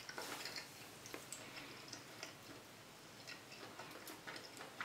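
Faint eating noises: small, scattered clicks and mouth sounds of someone chewing a mouthful of stir-fried food.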